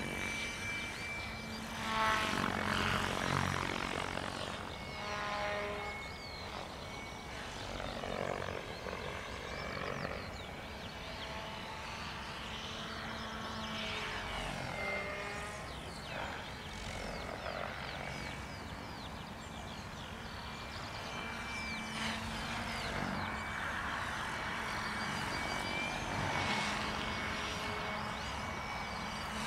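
Compass Chronos 700 electric RC helicopter flying 3D aerobatics at a low 1400 rpm headspeed: rotor blades rushing, with a whine that sweeps up and down in pitch and loudness as the model moves and changes attitude.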